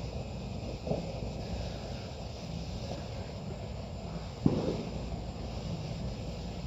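Two dull firework pops from a consumer firework, a small one about a second in and a louder one about four and a half seconds in, over steady wind rumble on the microphone.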